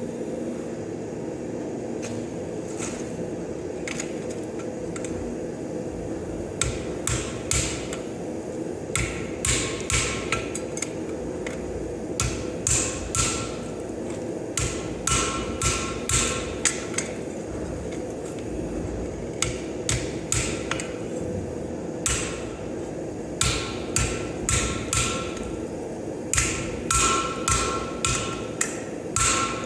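Hammer blows on hot steel at the anvil while forging a leaf blank, struck in short runs of several blows with pauses between, each blow ringing briefly. A steady low roar runs underneath.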